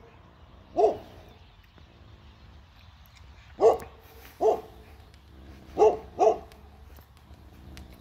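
A dog barking: five single barks at uneven spacing, the last two close together.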